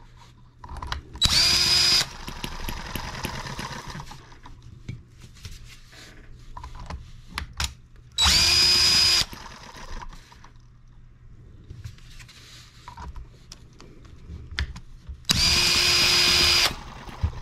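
Cordless drill spinning over a small single-cylinder M18 model engine through its drill-start attachment, in three short bursts of about a second each, each opening with a rising whine as the drill spins up. The engine is being cranked to start it on alcohol through a vaporizer carburetor.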